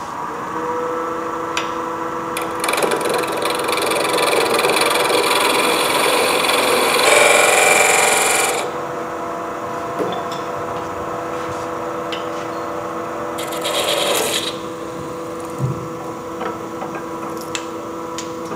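Wood lathe running with a steady hum while a tool rubs against the spinning wood, making a loud rasping noise in two stretches: a long one from about two and a half to eight and a half seconds in, and a short one about fourteen seconds in.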